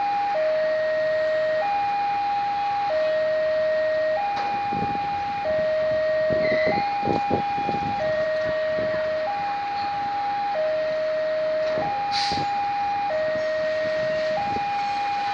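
Railway level-crossing alarm sounding its two-tone electronic warning, a lower and a higher tone swapping about every second and a half, the signal that a train is approaching. A few brief knocks are heard about halfway through.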